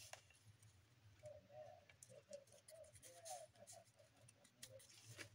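Near silence: faint ticks and rustles of paper and lace being handled, with a faint run of short chirps from about a second in until near the end.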